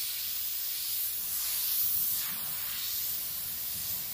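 Airbrush spraying black paint while fine lines are drawn: a steady hiss of air.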